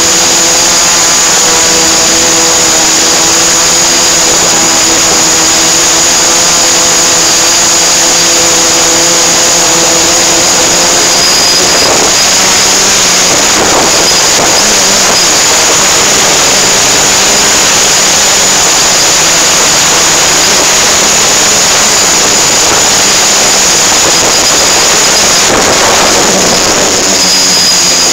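Aircraft motor and propeller running steadily, heard from on board the aircraft with loud wind rush and a constant high whine. A lower humming pitch fades out about eleven seconds in.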